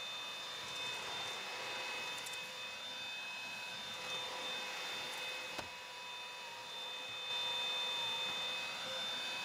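Eureka Rapid Clean Pro cordless stick vacuum running on a hard floor: a steady motor whine over a hiss of airflow, getting a little louder about seven seconds in.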